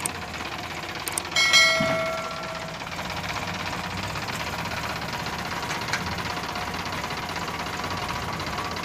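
Diesel engines of a tractor and a backhoe loader running steadily. About a second and a half in, a click and then a loud ringing ding that fades over about a second.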